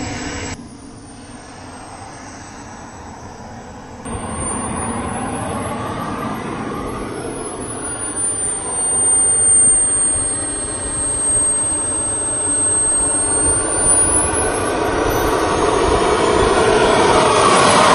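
Model turbine jet engine of a Jet Legend F-16 running as the plane taxis: a steady rushing roar with a high whistling whine that slides up, down and up again in pitch. The sound grows louder over the second half as the turbine spools up.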